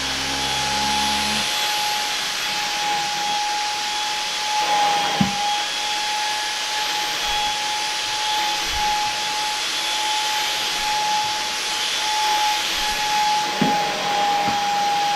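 Samsung Jet 90 Pro cordless stick vacuum running steadily with its turbo brush head on a fabric mat: a steady high motor whine over a rush of air. A brief knock comes about five seconds in, and another near the end.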